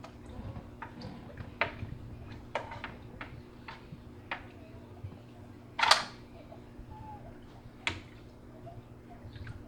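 Aquarium cleaning tool scraping and clicking against the tank glass: a string of short, irregular clicks and scrapes, the loudest about six seconds in.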